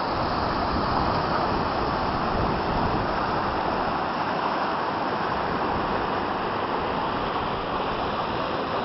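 Small mountain stream cascading between rock boulders: a steady rush of falling water, easing slightly toward the end.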